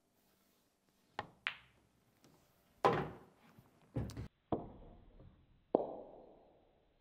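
Two sharp clicks close together about a second in: the cue tip striking the cue ball, then the smaller English-pool cue ball clacking into the object ball. Several heavier, ringing knocks follow, typical of the potted ball dropping into the pocket and running through the table.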